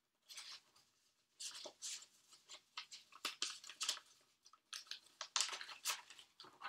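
Paper and packaging rustling and crinkling in irregular bursts as they are handled.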